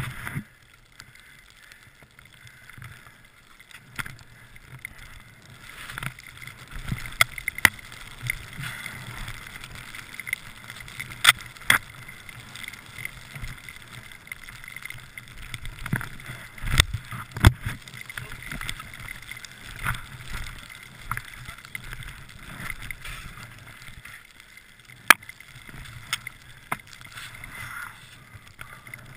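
Skis swishing continuously through deep powder snow, broken by scattered sharp knocks and clicks, the loudest clustered in the middle.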